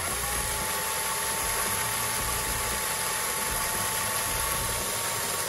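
Small handheld electric drill running steadily under load as it drills out the mushroom head of a rivet in a plastic toy gun's grip. Its whine rises briefly as the motor spins up, then holds steady.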